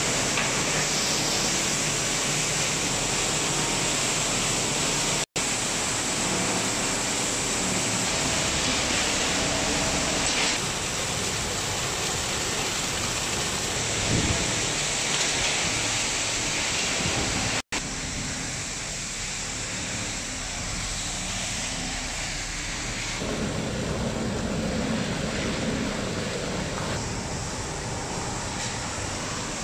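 Steady, dense hiss and rumble of plastic-recycling plant machinery, mixed in the first seconds with the patter of washed plastic flakes pouring into a bulk bag. After two abrupt cuts the noise is somewhat quieter, with a low hum near the water-treatment tanks.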